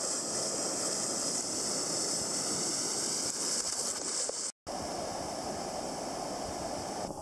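Ocean surf breaking and white water washing in close by, a steady rush of water. The sound drops out completely for a split second about halfway through, then the surf rush resumes.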